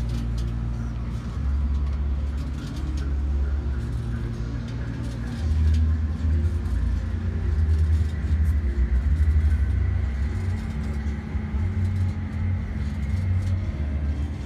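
Low, uneven outdoor rumble that swells and drops every second or so, with a faint steady hum over it.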